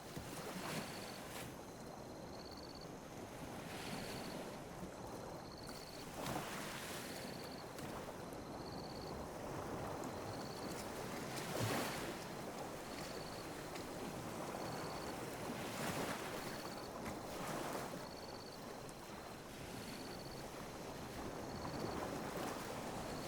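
Small ocean waves lapping and washing on a beach: a steady hiss of surf, with a wave surging in every few seconds.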